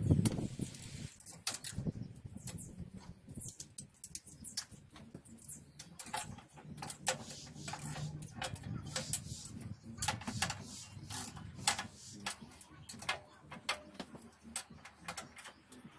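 Irregular clinks and clicks of a ratchet and socket on metal, with scattered sharp knocks, as engine mounting bolts are fitted and tightened.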